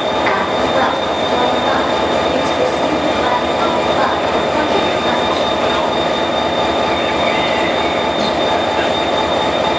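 Korail diesel locomotive idling close by: a steady, even engine running noise with a thin high whine held over it.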